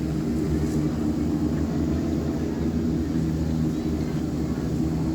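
An engine running steadily, a low, even drone with no change in pitch.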